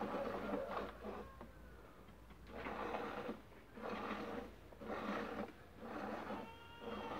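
Goat being hand-milked: streams of milk squirting into a part-filled plastic bucket, about one squirt a second with a short pause about two seconds in.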